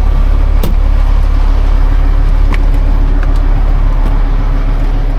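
A vehicle running with a steady, loud low drone, with a few light clicks over it.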